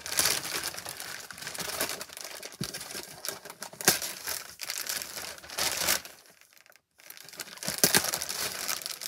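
Gift wrapping paper being torn off and crumpled by hand: a run of crinkling, ripping rustles that stops for a moment about two-thirds of the way through, then starts again.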